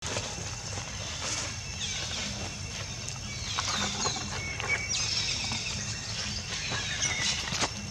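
Outdoor ambience with many short, high chirps and squeaks from small animals over a steady high-pitched whine, with a faint low hum underneath.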